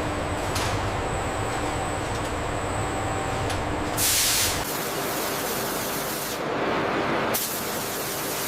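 Steady factory machinery noise, broken about four seconds in by a short, loud hiss of released compressed air, with a briefer hiss near the end.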